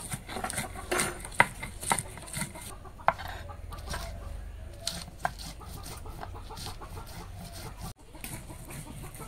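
A hand stone crushing green chilies and garlic on a flat stone grinding slab, giving scattered sharp knocks, with chickens clucking around it.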